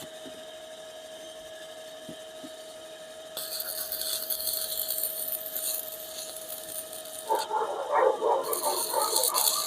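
Water-pumping machine running with a steady hum, joined about a third of the way in by a hissing rush that comes and goes. Near the end a dog starts barking rapidly.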